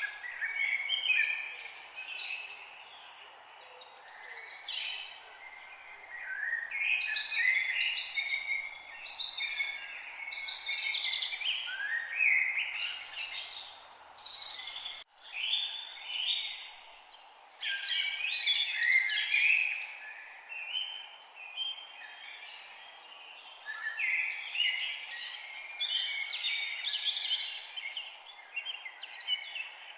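Many birds singing and chirping at once, their overlapping calls continuing throughout over a steady background hiss. The sound cuts out for an instant about halfway through.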